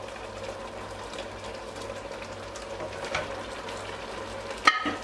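Pot of soup simmering on the stove, a steady soft hiss, with one sharp clink about four and a half seconds in.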